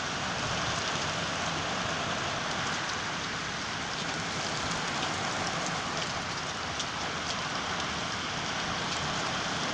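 Heavy rain falling steadily, an even hiss with faint scattered ticks of drops striking.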